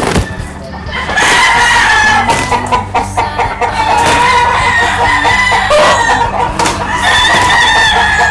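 Gamecock roosters crowing repeatedly, long drawn calls following one another, over steady background music.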